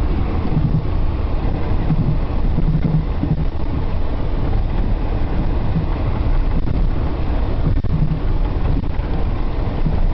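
Ford F-350 pickup driving on a rough gravel logging road, heard from inside the cab: a steady, loud, low rumble of engine and tyres on gravel.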